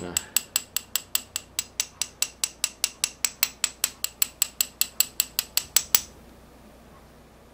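Shimano XTR BR-M9000 brake caliper being tapped rapidly with a small metal tool, about five sharp ringing taps a second, stopping about six seconds in. The tapping is done during a gravity bleed to knock trapped air bubbles loose from the caliper.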